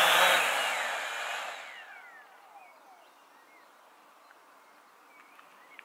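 Hubsan Zino quadcopter's propellers whirring loudly as it finishes an automatic return-to-home landing, then the motors spin down with a falling whine and stop about two seconds in.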